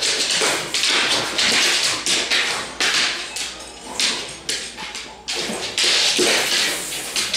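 A boxer dog pawing and pouncing at a bone-shaped dog biscuit on a hardwood floor: a quick, irregular run of taps, scrapes and thuds, about two a second.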